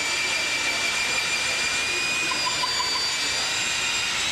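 Electric power drill running steadily at full speed with a high motor whine.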